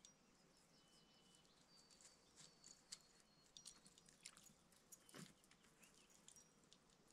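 Near silence, with faint scattered clicks and a few brief high peeps.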